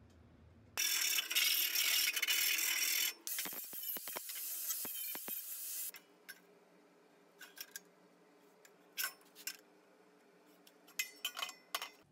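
Stainless steel square tubing handled on a steel welding table: a loud scraping, rushing noise for about two seconds, then metal clinks and knocks that thin out to a few scattered taps in the second half.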